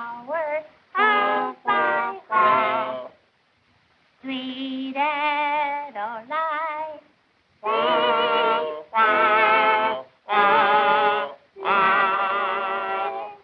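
Cartoon characters singing together with a wavering vibrato: three short notes, a longer phrase, then four long held notes, with brief quiet gaps between them. The sound is thin and narrow, as on an early sound-film soundtrack.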